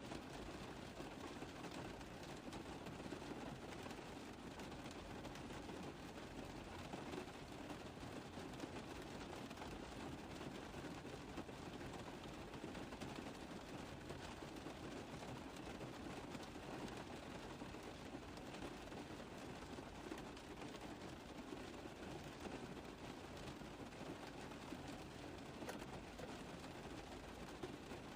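Rain tapping on a car roof: a steady, dense patter of many small drop impacts, unchanging throughout.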